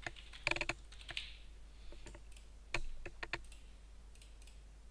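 Computer keyboard being typed on in short bursts: a few keystrokes about half a second in and another quick run of them around the three-second mark, as a one-word text label is entered.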